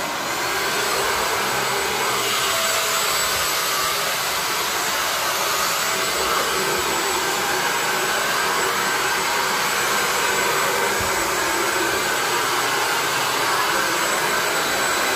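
Corded stick vacuum cleaner running steadily on a tiled floor, a constant even hiss with a faint high whine.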